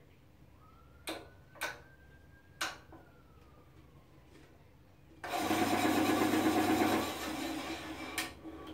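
The bandsaw's push-button switch clicks three times without the machine starting, because its cabinet-door safety interlock is not engaging. About five seconds in comes a loud mechanical buzzing rattle lasting about two seconds, which then fades, and there is one more click near the end.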